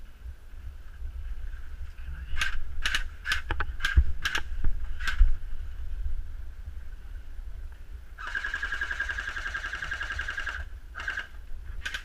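Airsoft guns firing, muffled by a waterproof camera housing: several single shots about two to five seconds in, then a rapid full-auto burst lasting about two and a half seconds, followed by a few more shots near the end. A low rumble of wind and movement on the housing runs underneath.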